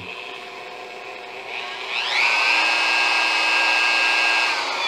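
Dremel 4300 corded rotary tool, fitted with a drill chuck and bit, running free. Its motor starts at low speed, about two seconds in speeds up with a rising whine, holds a steady high whine, and winds down near the end.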